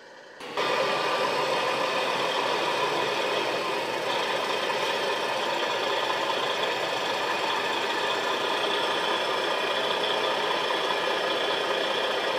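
The 12-litre Detroit Diesel Series 60 engine of a 2000 Freightliner Century truck tractor running steadily, heard loud and close. The sound gets abruptly louder about half a second in.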